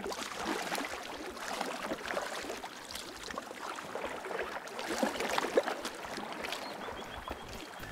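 Kayak paddle blades dipping and splashing in shallow river water, an uneven run of small splashes and drips from the strokes.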